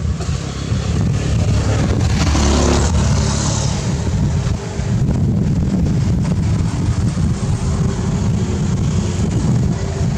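Wind buffeting the microphone, a steady uneven low rumble, with a louder rushing swell about two to four seconds in.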